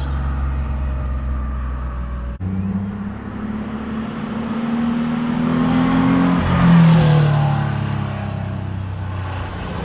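Freshly rebuilt air-cooled flat-six of a Porsche 911 Carrera 3.2 with a Ruf muffler, heard from the roadside as the car drives toward it. A steady engine note is cut off abruptly about two and a half seconds in. The note then rises as the car climbs closer, is loudest and drops in pitch as it passes at about seven seconds, and settles into a steady note.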